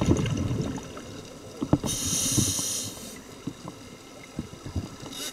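Scuba diver breathing through a regulator underwater: a low bubbling rush of exhaled air in the first second, then a steady hiss of an inhale about two seconds in, with scattered faint clicks.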